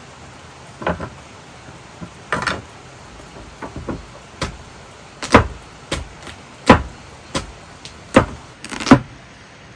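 Large knife chopping through pumpkin and knocking on a wooden cutting board: a string of irregular knocks, louder and closer together in the second half.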